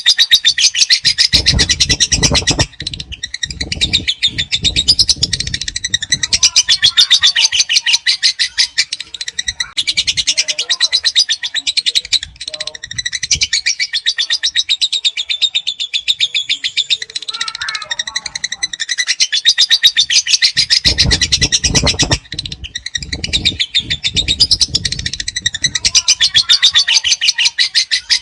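Lovebird giving its long 'ngekek' chatter: very fast, high, rattling trills in long runs with short breaks between them. Low thuds come in twice, near the start and about three-quarters of the way through.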